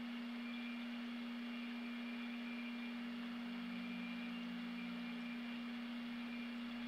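A steady low hum on a single tone, with an even hiss behind it.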